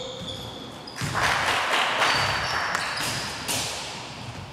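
Basketball bouncing on a hardwood gym floor during play, with sneakers squeaking in short high chirps. About a second in, a loud rush of noise starts and fades away over the next two seconds.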